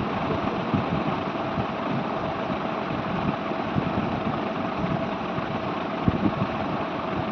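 Steady machine hum: a constant whirring hiss with a low engine-like drone and a faint steady tone. A brief soft thump comes about six seconds in.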